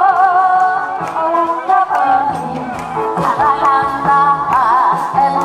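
Woman singing a Korean trot song through a microphone, holding notes with a wide vibrato, over amplified backing music with a steady bass line.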